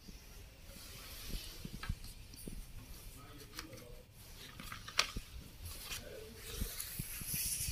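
Handling noise from a pack of felt-tip markers on a glass table: scattered light clicks and taps over a faint hiss, with one sharper tap about five seconds in.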